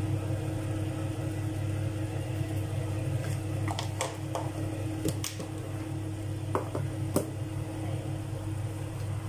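A steady low mechanical hum runs under the kitchen sounds. Several light clicks and taps of utensils come in the middle.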